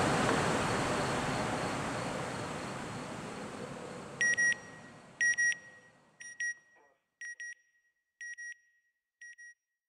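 Rumble of the Terrier-Improved Malemute sounding rocket fading away over the first six seconds. Then six electronic double beeps, one pair about every second, each fainter than the last.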